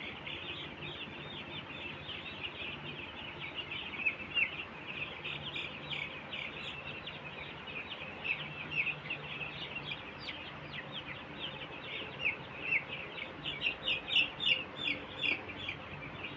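A flock of week-old chicks peeping constantly, many short high chirps overlapping, growing busier and louder near the end.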